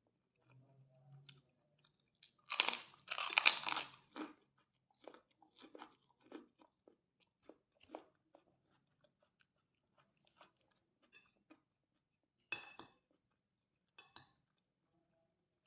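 A person biting into and chewing kerupuk crackers with fried rice. Loud crunches come about two and a half to four seconds in, followed by softer chewing, and two more crisp bites near the end.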